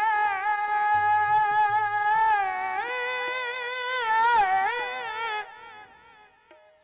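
Qawwali singing: a voice holds one long wordless note with a slight waver, then slides through ornamented turns. It fades away about five and a half seconds in.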